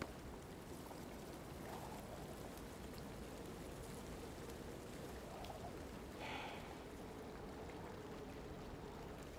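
Quiet, steady ambient hiss of a film soundtrack with a faint held tone beneath it, and a brief soft sound a little past the middle.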